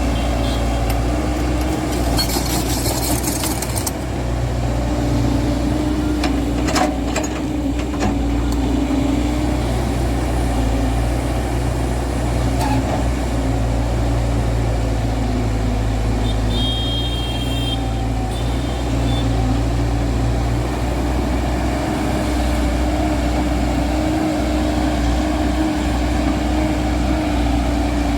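Diesel engine of a JCB JS140 tracked excavator running steadily while it works, with a brief high hiss a few seconds in.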